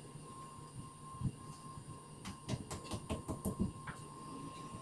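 Claw hammer tapping at the wall fitting for a cooker hood: a run of light knocks, several in quick succession in the middle, over a faint steady high tone.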